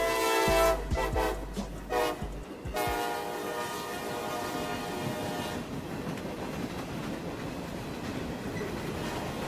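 Freight locomotive horn sounding at a grade crossing: one blast at the start and a longer one from about three seconds in. After that comes the steady noise of boxcars rolling past on the rails.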